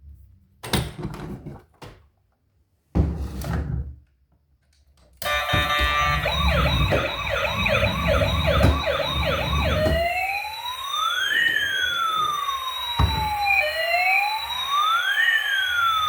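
A couple of short bursts of knocks and thumps, then a toy emergency vehicle's electronic siren switches on about five seconds in. It first gives a fast yelp of quick rising sweeps, about two a second, then from about ten seconds on a slow wail that rises and falls.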